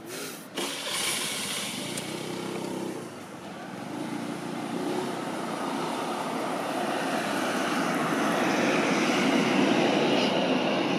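Distant engine drone that builds gradually louder over several seconds, with a few sharp clicks right at the start.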